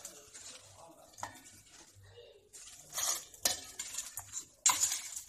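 Chopped onions tipped into a stainless steel bowl and mixed by hand into spice-coated raw chicken: irregular rustling and scraping against the steel, with a sudden sharp clatter near the end.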